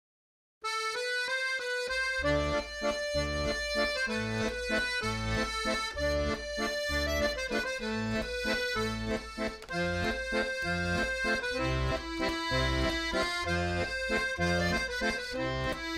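Accordion music with a steady, bouncing bass line that starts about half a second in; the bass comes in about two seconds in.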